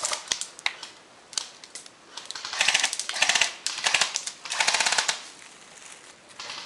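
Airsoft gun firing in rapid rattling bursts: a short burst at the start, then three longer bursts through the middle, with scattered single shots and short pauses between.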